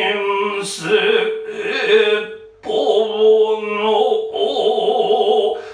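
Noh chanting (utai): a voice singing one line in long, drawn-out wavering notes, with a brief break for breath about halfway.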